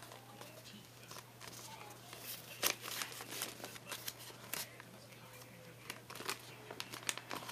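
Taped paper tube being handled: paper and tape rustling and crinkling, with scattered taps and clicks, the sharpest about two and a half seconds in, over a low steady hum.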